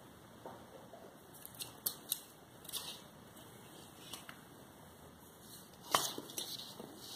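A few scattered light clicks and small handling noises, the loudest about six seconds in.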